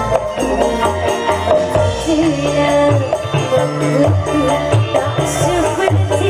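A live dangdut band playing amplified through a PA: a woman singing the melody over electric bass, guitars, keyboard and drums, with a steady beat.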